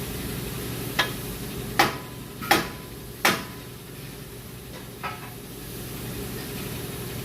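Hand tools clinking against metal while working on the front hub: four sharp clinks roughly a second apart, then a fainter one a couple of seconds later, over a steady low hum.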